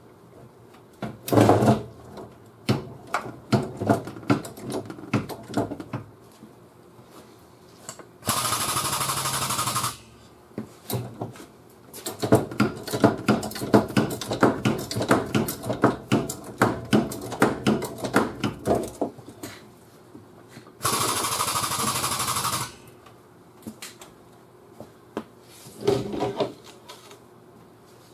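Hand-tool and air-tool work on a car's rear body structure: runs of rapid ratcheting clicks and metal knocks, and twice a steady whir of an air tool running for about two seconds.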